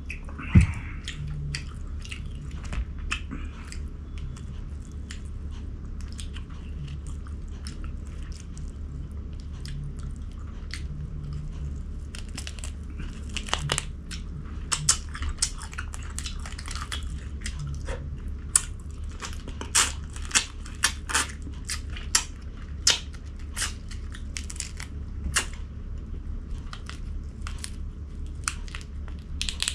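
Close-miked chewing and crunching of food, with many sharp crunches and mouth clicks that come thicker from about halfway through, over a steady low hum. A sharp knock about half a second in is the loudest sound.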